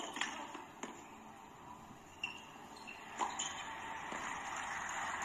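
Tennis ball struck by rackets in a rally: a few sharp hits in the first second and one more a little after three seconds in. Crowd applause then builds and holds toward the end.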